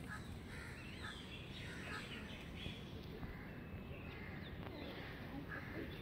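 Faint outdoor background of birds calling: short calls repeating every half second or so, some sliding in pitch, over a low steady background noise.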